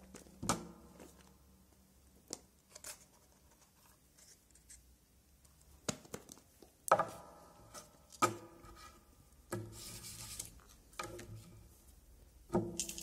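Plastic items being handled and set down on a desk: a string of sharp knocks, some with a short ringing tone, and a brief crinkly rustle of plastic packaging a little before two-thirds of the way in.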